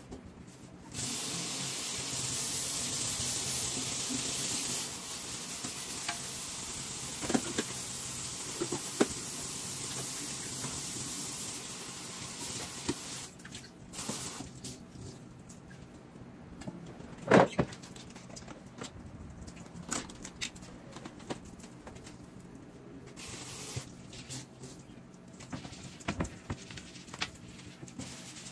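Kitchen tap running into a stainless steel sink while it is washed, the flow easing about four seconds in and shutting off about twelve seconds in. Scattered knocks and clatter of things handled at the sink follow, one sharp knock louder than the rest.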